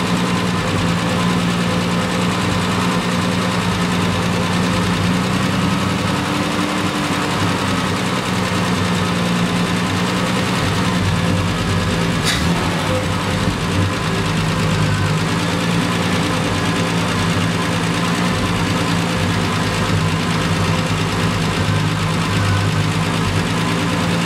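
1973 Triumph TR6's straight-six engine idling steadily with its air cleaners off, running while the airflow through its twin carburettors is checked for balance. A single sharp click about twelve seconds in.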